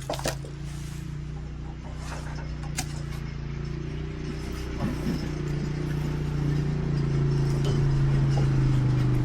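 An engine running with a steady hum that grows louder through the second half, with a few light clinks and knocks about a second and three seconds in.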